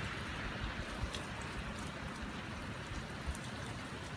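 Steady pouring rain, with individual drops ticking close by now and then.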